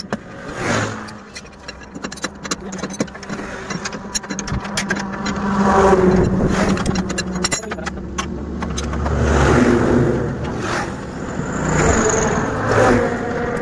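Road traffic passing close by, engine sound swelling and fading three times, with scattered short metallic clicks and clinks from a long wheel brace working the truck's wheel nuts.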